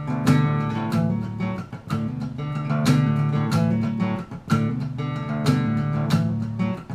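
Acoustic guitar strummed in a steady country rhythm, about two strums a second, with the chords ringing on between strums.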